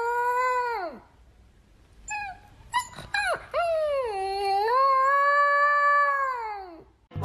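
A dog howling: a long drawn-out howl that slides down and breaks off about a second in, a few short yips, then a second long howl that falls away at the end.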